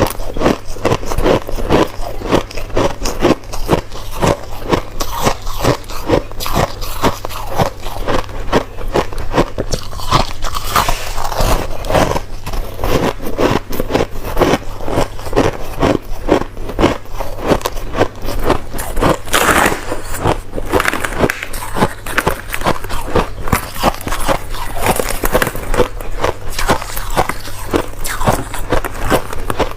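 Crushed ice being chewed close to the microphone: a steady run of crisp crunches, several a second.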